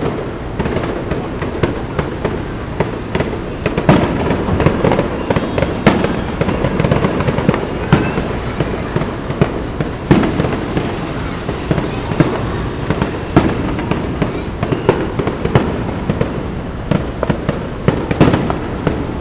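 Aerial fireworks shells bursting in a dense, continuous barrage, with many sharp bangs in quick succession over a steady rumble.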